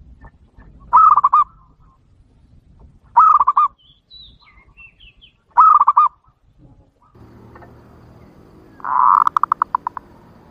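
Zebra dove (perkutut) lure call. Three short, warbling coos come about two seconds apart, then a longer coo ends in a quick rattling trill near the end. A low steady hum comes in about two-thirds of the way through.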